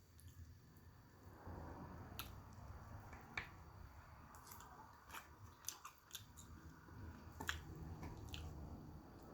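Close-up eating sounds: soft chewing with about seven sharp, scattered clicks.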